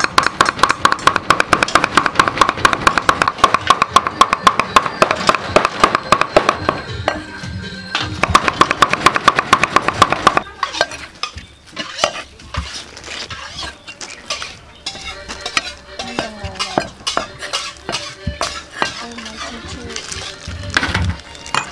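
Two knives rapidly chopping raw beef into mince on a thick wooden chopping block, a fast steady drumming of blades on wood with a short pause about seven seconds in. After about ten seconds the chopping gives way to slower, scattered knocks. Background music plays underneath.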